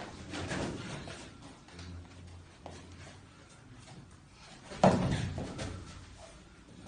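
Two men grappling standing up on a training mat: shuffling feet and clothing. About five seconds in comes one sharp thud, the loudest sound, most likely a foot stamping on the mat.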